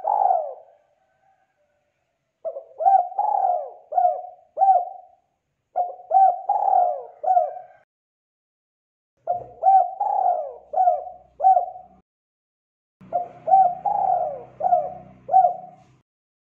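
Spotted dove singing its cooing song: four phrases of four or five coos each, with short pauses between them.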